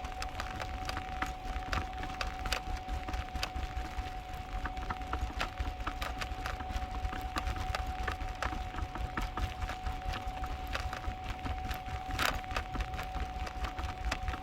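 Dog stroller rolling over pavement, its wheels rattling with many irregular clicks over a low rumble, with a steady high tone running underneath.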